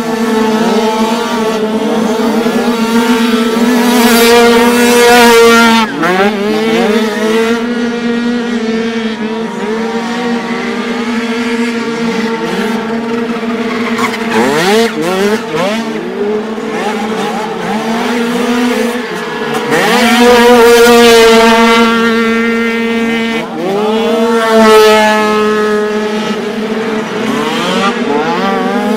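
Several 49cc two-stroke dirt bike engines revving hard as they race past, their pitch sweeping up and down as the riders accelerate and shift. A steady high engine note runs underneath. The loudest passes come about four seconds in, around twenty seconds in, and again about five seconds later.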